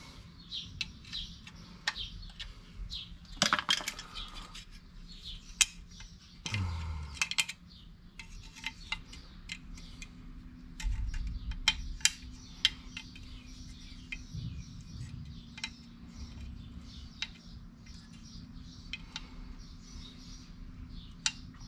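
Light metallic clicks and clinks of drum-brake parts being handled: a brake shoe, its return springs and small hardware knocking together, at irregular moments, with a couple of louder knocks early on.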